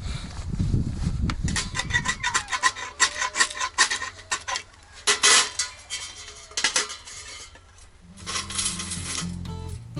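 Metal cookware and utensils clinking and scraping: a run of sharp ringing clinks, with a short scrape partway through. Guitar music fades in near the end.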